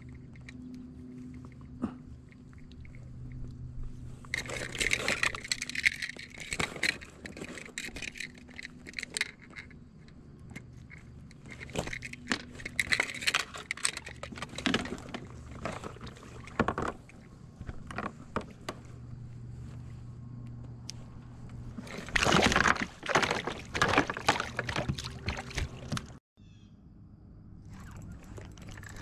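Hands handling a just-caught crappie on a kayak: repeated bursts of rustling, clicks and water splashing in three spells, over a low steady hum.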